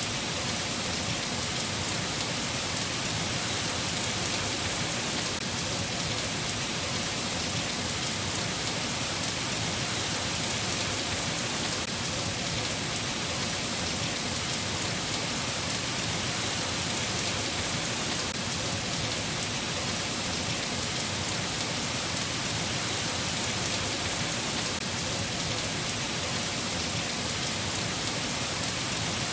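Rain falling steadily, an even hiss with the fine patter of drops.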